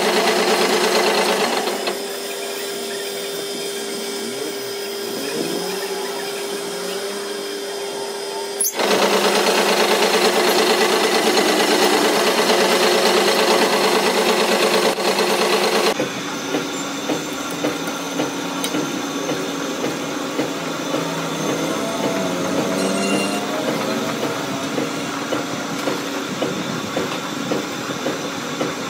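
Metal lathe running with its tool cutting on a steel tractor-trolley axle tube: a steady machine hum that abruptly grows louder and softer in stretches. In the latter half it carries a regular knock about once or twice a second.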